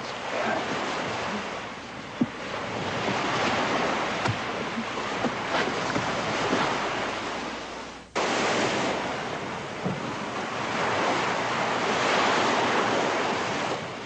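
Sea waves washing with wind, a steady rush that swells and eases slowly. It breaks off for an instant about eight seconds in, then goes on.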